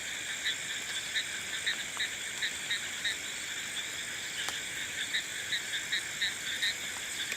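Frogs calling: short croaks repeated about three a second, stopping for about two seconds in the middle, over a steady high-pitched chorus.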